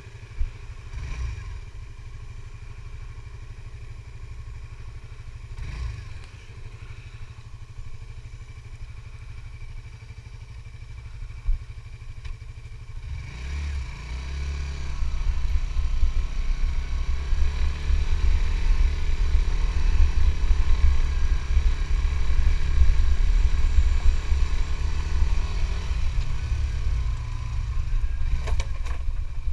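Suzuki GSX-S150's single-cylinder engine idling steadily, then revving up about thirteen seconds in as the motorcycle pulls away, running much louder once under way.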